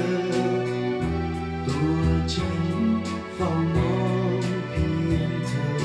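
Instrumental break of a Thai pop ballad played back from a CD, with a drum beat and bass under a melodic lead and no singing.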